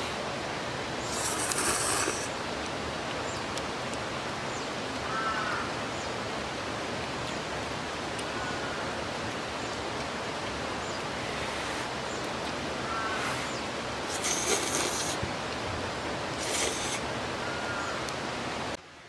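Mountain stream flowing steadily, with faint bird chirps every few seconds and a few short high hissing bursts; the sound cuts off suddenly near the end.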